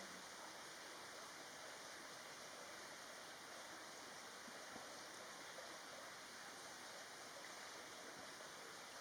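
Faint, steady rushing noise with no bird calls or other distinct events.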